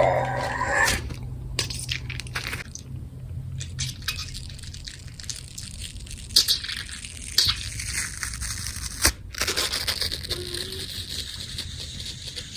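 Horror sound effects: a loud pitched cry dies away in the first second, followed by wet crunching and liquid noises broken by a few sharp cracks.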